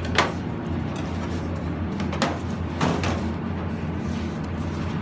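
A knife knocking against a plastic cutting board a few times, once near the start and a quick cluster around the middle, over a steady low hum.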